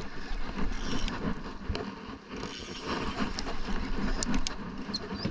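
Gusty wind and sea noise around an open fishing boat while a conventional casting reel is cranked against a hooked fish, with a few sharp clicks near the end.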